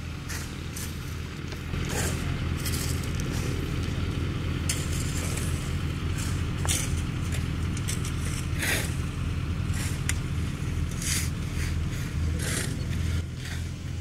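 Heavy diesel road-construction machinery running steadily, louder from about two seconds in, with repeated short scrapes over it, typical of tools working hot asphalt.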